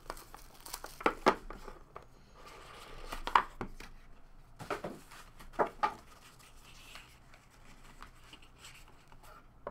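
Plastic shrink wrap being torn and crinkled off a trading-card box, then scattered sharp taps and rubs as the box is handled and opened.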